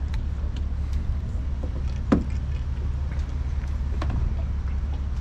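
Steady low rumble, with one sharp knock about two seconds in and a few fainter clicks.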